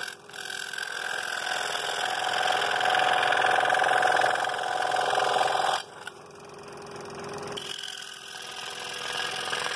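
Scroll saw running, its reciprocating blade cutting into a wooden board along a pattern line to a square corner. The cutting stops sharply about six seconds in, leaving the saw running more quietly. A second cut into the corner from the other direction starts about two seconds later.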